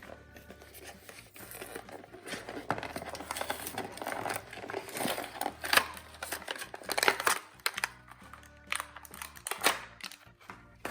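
Toy packaging being opened by hand, crinkling and tearing in irregular bursts from about two seconds in, over quiet background music.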